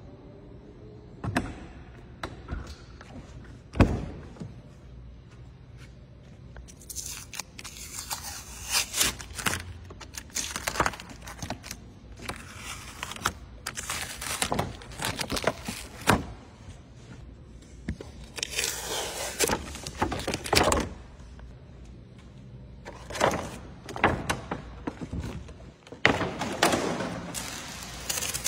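Protective masking tape and plastic film being peeled off a new car's door jamb and sill: repeated short ripping and crinkling strokes in clusters. A single sharp thunk comes about four seconds in.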